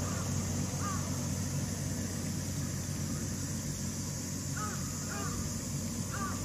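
Crow cawing: one short caw about a second in, then three more near the end, over a steady low hum.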